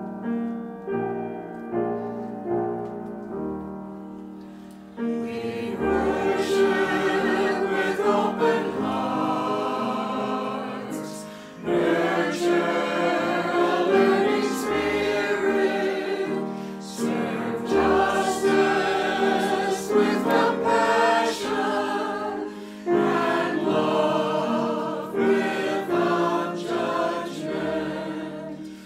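Piano playing a short introduction, then a choir singing a slow hymn in chordal phrases with piano accompaniment, the voices coming in about five seconds in.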